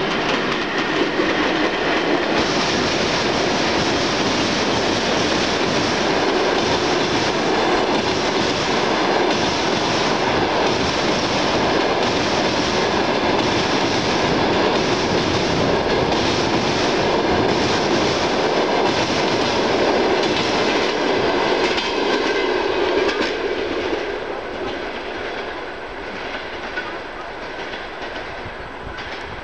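Passenger train hauled by a ChS7 electric locomotive, its coaches rolling across a steel truss railway bridge with wheels clattering over the rail joints in a steady, loud run. The noise drops off noticeably about four-fifths of the way through.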